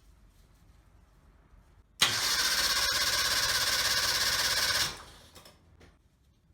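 Suzuki Jimny SJ30's two-stroke LJ50 engine turning over on its starter. It comes in abruptly about two seconds in, runs steadily for about three seconds, then dies away. This is an engine with a seizure (焼き付き), the cause of its abnormal noise.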